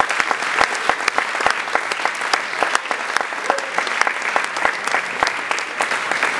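Audience applauding: a dense, steady run of hand claps.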